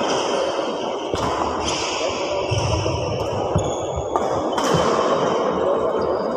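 Indoor badminton hall ambience: a steady echoing din broken by a few sharp knocks and thuds, about a second in and again around four seconds in.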